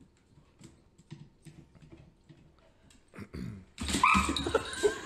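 Faint clicks of a dog's claws on a hardwood floor as it walks, then, from about four seconds in, a loud, wavering dog vocalization.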